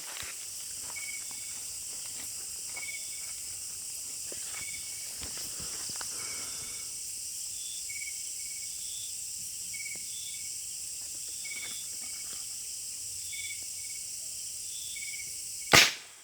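Steady high-pitched insect drone with short chirps repeating about once a second. Near the end a single sharp, loud crack stands out above it.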